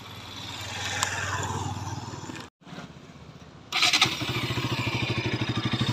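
Bajaj Pulsar NS200 single-cylinder engine starting: a rising whirr first, then the engine catches nearly four seconds in and settles into a steady idle with rapid, even pulses. It is running on a freshly fitted air filter, and its note is a bassy one.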